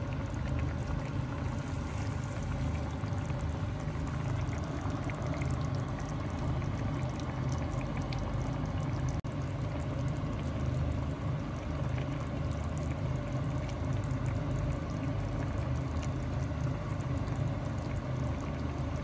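Steady running or pouring water, an even rushing hiss with a momentary break about nine seconds in.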